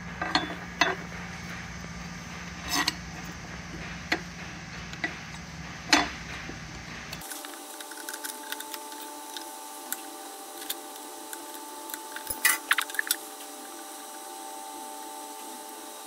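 Scattered light clicks and knocks of a valve grinder's wheel guard being handled and seated over the grinding wheel by hand, with a quick run of taps a little after the middle. Under them is a steady shop hum that changes abruptly about halfway through.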